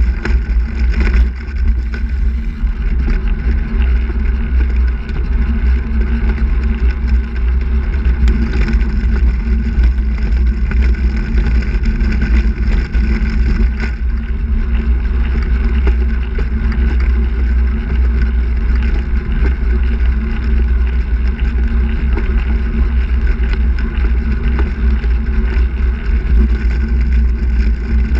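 Steady wind rumble on the microphone of a camera mounted on a moving handbike, over the steady hum of its tyres rolling on asphalt.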